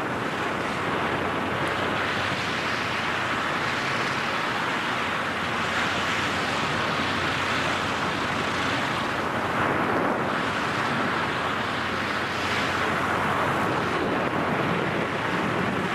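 Steady rush of wind noise on a camera microphone in skydiving freefall.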